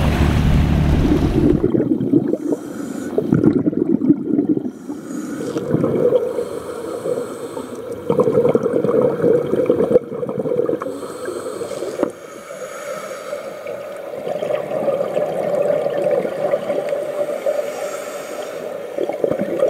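Wind and water noise at the sea surface for the first second or two, then a sudden change to the muffled sound of being underwater. Scuba exhaust bubbles gurgle and a regulator breathes in irregular surges.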